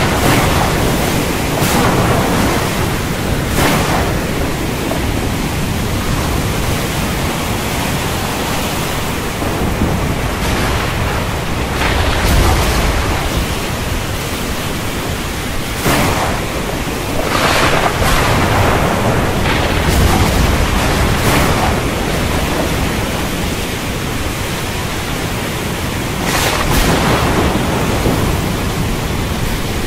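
Thunderstorm ambience: a steady hiss of heavy rain with low thunder rumbles swelling about twelve seconds in and again around twenty seconds, and several brief louder rushes along the way.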